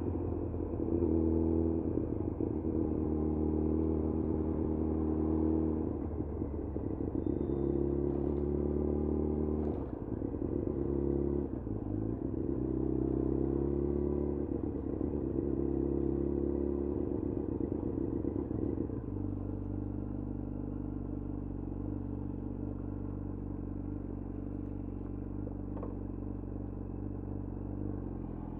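2011 Yamaha FZ1's inline-four engine running at low revs, its pitch rising and falling with the throttle. About two-thirds of the way in it settles to a steady, lower note.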